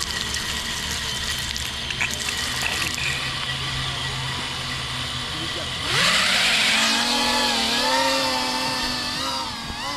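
Brushless motors and propellers of a small 3-inch FPV quadcopter (Brother Hobby 1507 motors, Gemfan 3-inch props) running with a steady hum and hiss at first. About six seconds in they spin up sharply, then whine with a pitch that wavers up and down as the throttle changes.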